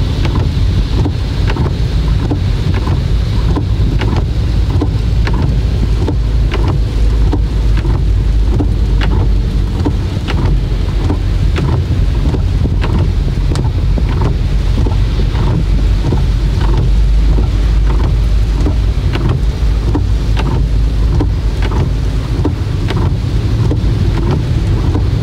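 Inside a car cabin driving on a wet road in heavy rain: a steady low rumble of road and engine noise, with raindrops ticking on the windscreen and roof throughout.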